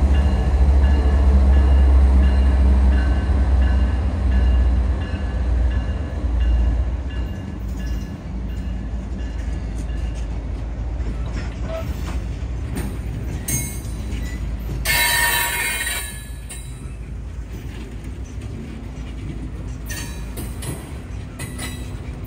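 Diesel freight locomotives passing under power: a heavy engine rumble with steady tones that fades over the first eight seconds, followed by the steady rolling of loaded coal gondolas on the rails. About fifteen seconds in there is a brief, high-pitched burst of about a second.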